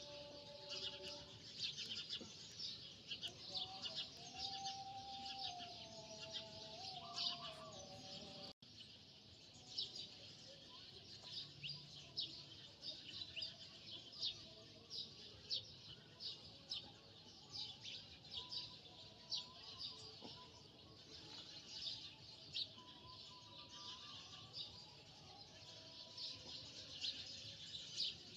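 Faint background of birds chirping, many quick high chirps throughout, with some faint wavering tones lower down and a brief dropout about eight seconds in.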